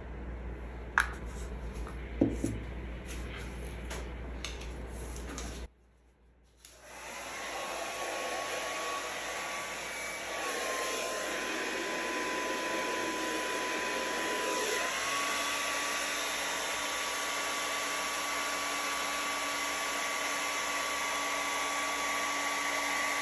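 A hair dryer running steadily with a high whine, blowing wet acrylic paint outward into a bloom. A couple of light taps come first, and the dryer starts after a short silence about six seconds in; its whine drops a little for a few seconds in the middle.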